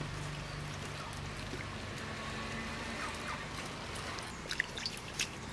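Wooden spatula knocking a few times against an aluminium cooking pot near the end, over a steady outdoor background hiss.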